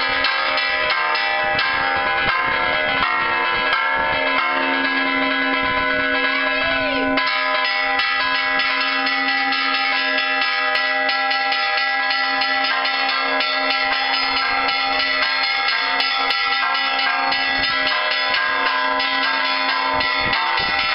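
Several church bells rung repeatedly by hand, their ringing tones overlapping in a continuous peal. A deeper tone stops about seven seconds in.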